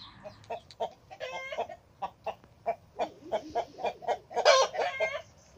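Chickens clucking, short calls coming about three a second, with two longer, louder calls: one about a second in and the loudest near the end.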